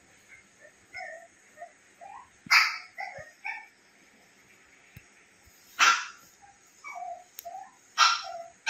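A dog barking: three sharp barks a few seconds apart, with fainter short yelps between them.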